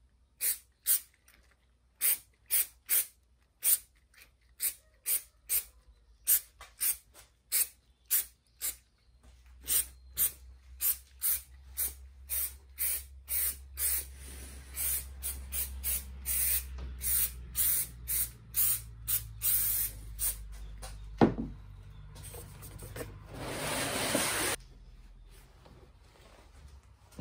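Aerosol can of spray adhesive sprayed in many short bursts, about two a second, then held down in one longer spray of about two seconds near the end. A single sharp knock sounds about two-thirds of the way through.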